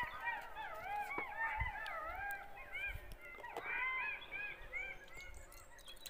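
A pack of golden jackals howling together: many overlapping wavering wails, each rising and falling in pitch, thinning out near the end.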